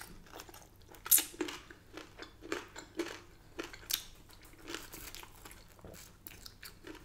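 A person chewing and biting crispy, well-cooked chicken wings with crunchy skin: a run of irregular crunches, the loudest a little over a second in.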